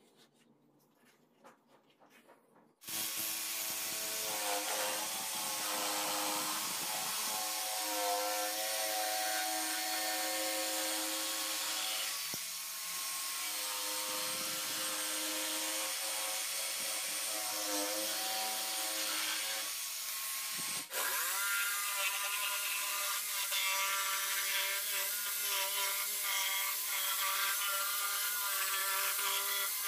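Faint pencil scratching for the first few seconds, then an MT electric jigsaw starts about three seconds in and cuts steadily through a board faced with glued wood strips, following the traced feather outline. The saw's motor whine sits over the rasp of the blade, with a brief break about twenty seconds in.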